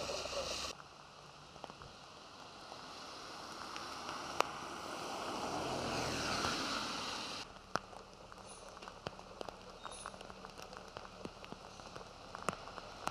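Steady rain with dripping drops. A swell of hiss builds through the first half and cuts off abruptly about seven seconds in. After that, many small separate drop ticks stand out.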